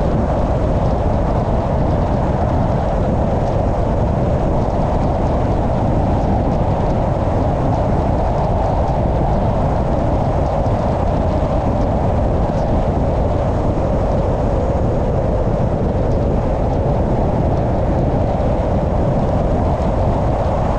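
Car driving at a steady speed: even engine and road noise without change.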